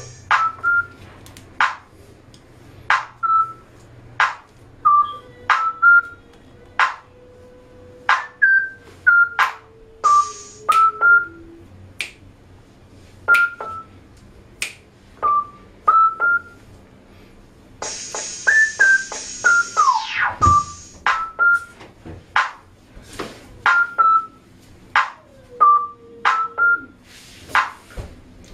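Background music: a sparse electronic beat of short, sharp strokes and brief synth blips repeating evenly, with a hissing sweep that falls in pitch about two-thirds of the way through.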